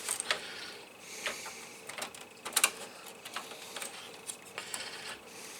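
Irregular small clicks and knocks as parts and cables are handled inside a computer case; the sharpest is a quick double click about two and a half seconds in.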